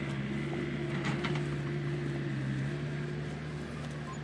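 A steady low mechanical hum, like a motor or fan running, with a couple of faint clicks about a second in.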